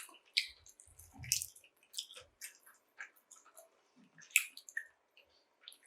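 Close-miked chewing of crispy air-fried chicken wings: a string of irregular wet smacks and crunchy crackles, the loudest a little over four seconds in.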